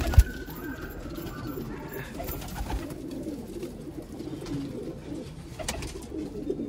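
A flock of domestic pigeons cooing together in a loft, a continuous wavering burble of overlapping calls. A single sharp thump sounds just after the start.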